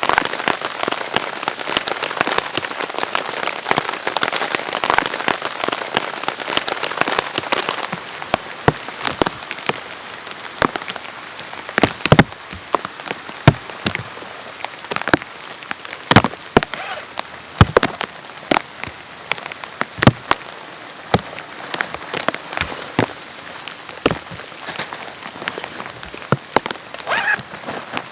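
Heavy rain falling in a dense, steady hiss for about eight seconds, then abruptly giving way to lighter rain in which large single drops strike a surface with sharp, separate taps, some of them loud.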